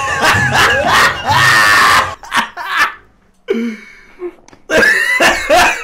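A man laughing loudly and heartily over party music with a steady beat. After about two seconds there is a brief lull, and near the end comes another burst of laughter.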